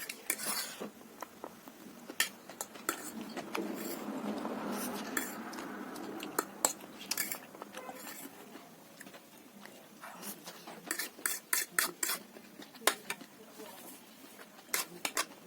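Spoon and utensils clinking and scraping against a bowl while eating noodle soup, in many short sharp knocks, densest in quick runs near the end.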